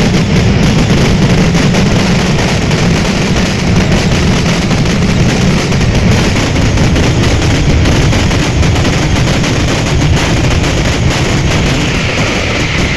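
Fireworks going off in a dense, unbroken barrage of rapid bangs and crackling.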